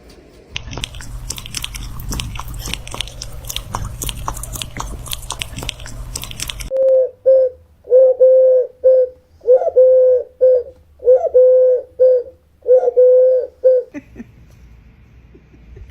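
Rapid crunching and clicking for about six seconds, then a pigeon-family bird cooing: a run of short, low, steady coos repeated in a rhythm for about seven seconds.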